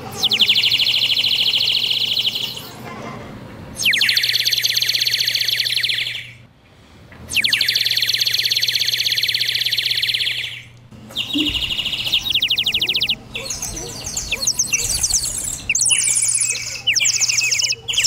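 Plastic water-filled bird whistle warbling in long blown trills, four separate blows with short gaps. Water half-filling the bird's belly is what makes it warble like birdsong. Near the end several such whistles warble together at different pitches.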